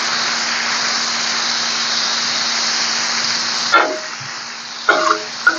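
Minced mutton in masala sizzling steadily on a hot tawa, with a little water added. About four seconds in the sizzle drops away, and a metal spatula clinks and scrapes on the tawa a few times.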